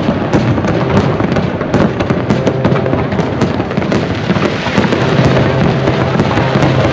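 Aerial fireworks display: a dense, continuous barrage of shell bursts and crackling stars, the many bangs and crackles running together with no pause.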